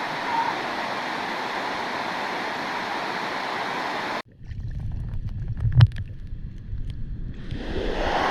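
Steady rush of a rainforest stream or waterfall. About four seconds in it cuts off abruptly to a muffled low rumble with scattered knocks, and the rushing water comes back near the end.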